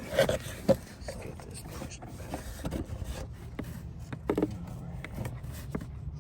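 Hands working the plastic lock tab and connectors on an evap purge valve's plug and hose: scattered small plastic clicks and rubbing, with two sharper clicks in the first second and another few about four seconds in.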